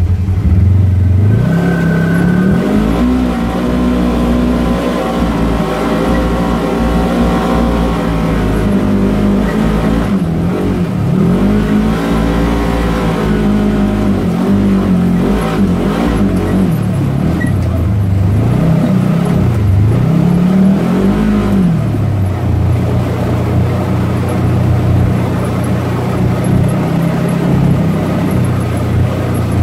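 Side-by-side UTV engine driven off-road over sand hills. The engine speed climbs about two seconds in, rises and falls several times in the middle as the throttle comes on and off, and holds higher and steadier near the end, with rough road and wind noise throughout.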